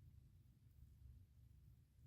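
Near silence: faint low hum of room tone.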